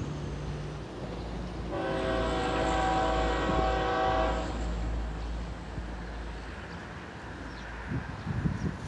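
Florida East Coast GE ES44C4 diesel locomotive sounding its multi-tone air horn once, for about three seconds, starting about two seconds in. Under it is the low rumble of the passing diesel train, which fades out near the end.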